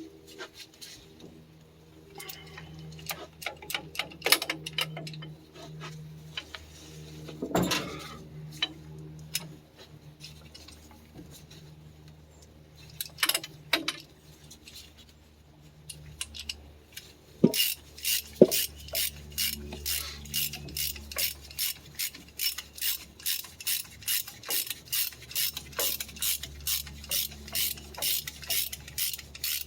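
Hand ratchet wrench on the bolts of a Ford 1910 tractor's front axle: scattered clicks and knocks at first, then a long, even run of ratchet clicks at about two or three a second through the second half. A low steady hum runs underneath.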